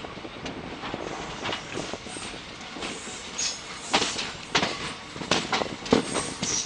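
Passenger train running, heard from an open coach doorway: a steady rush of running noise with irregular sharp clacks and knocks from the wheels on the rails, more frequent in the second half.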